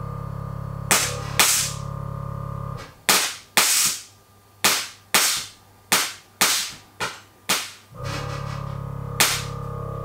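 Nissan GT-R R35's air suspension dumping air as the car lowers, in a series of short sharp hisses, about two a second. A steady low hum stops when the run of hisses starts and comes back near the end.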